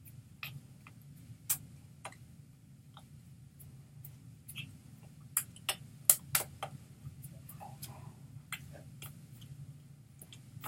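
Irregular sharp clicks and taps from a person signing in American Sign Language, over a steady low hum.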